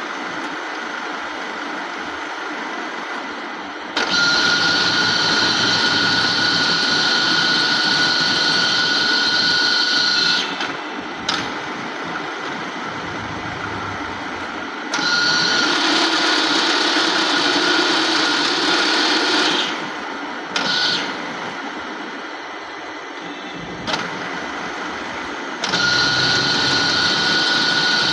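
Dufour 221 universal milling machine running. A steady mechanical drone alternates with louder stretches that carry a high steady whine, three times, with a short click or knock at several of the changes.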